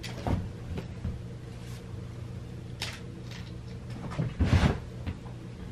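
Light knocks and rustles of a plastic basket and cat toys as a cat plays in and around it, with a louder thump about four and a half seconds in, over a steady low hum.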